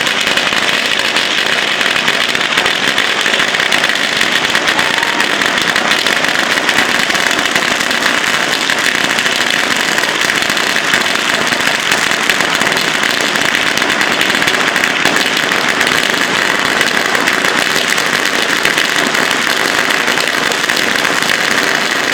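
Ground fountain firework spraying sparks with a steady, unbroken hiss, without separate bangs.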